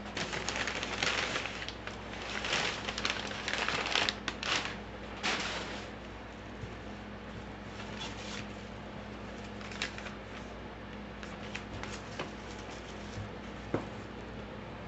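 Packaging rustling and crinkling in bursts as delivered parts are unpacked and handled, easing off after about five seconds into a few light clicks and taps.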